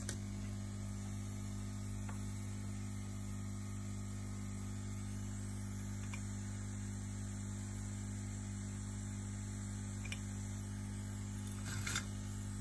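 Steady electrical mains hum, a low even buzz, with a few faint clicks and a short rustle near the end.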